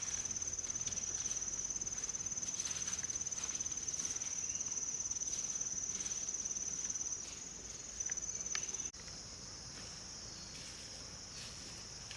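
Insects trilling continuously in a high-pitched, finely pulsing drone, with a few faint rustles or steps. About nine seconds in the trill changes suddenly to a slightly lower, quieter one.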